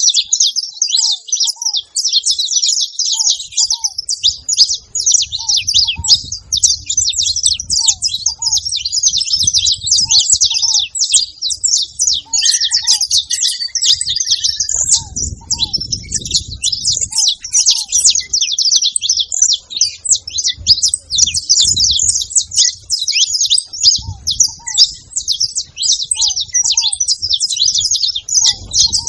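Saffron finches chattering together: a dense, continuous jumble of many high chirps and trills, with a short lower call repeating every second or two.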